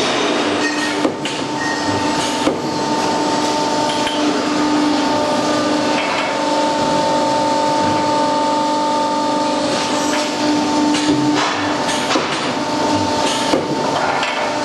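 Factory machinery running with a steady hum over a noisy rush. A few sharp metal clinks and knocks come as a steel coupler sleeve is set into and taken out of a steel jig.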